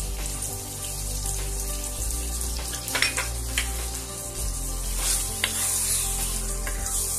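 Kheema and chana daal sizzling steadily as it cooks in an open pressure cooker, with a few sharp clicks of a spoon against the metal as it is stirred.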